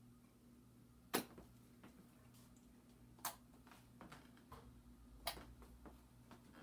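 Quiet room tone broken by three sharp clicks about two seconds apart, the first the loudest, with a few fainter ticks between them.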